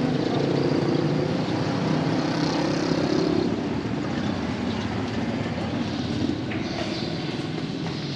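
A motor vehicle engine running, steady and louder for the first few seconds, then fading.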